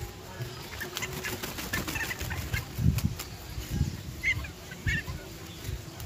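A little black cormorant flapping and shaking its wet wings, a rapid run of rustling flaps, with a few short clucking bird calls about four and five seconds in.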